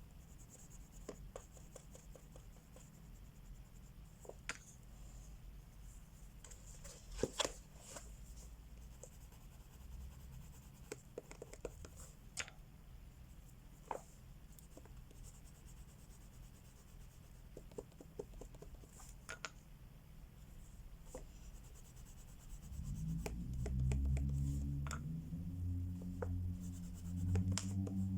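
Crayola wax crayons scratching and rubbing on coloring-book paper, with scattered small taps and clicks. About five seconds before the end, soft, low, sustained music with changing notes comes in.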